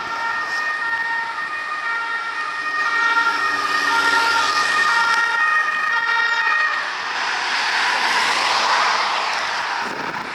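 French police two-tone siren, alternating between two pitches about every half second. Around seven seconds in, the siren fades under a rising rush of road noise.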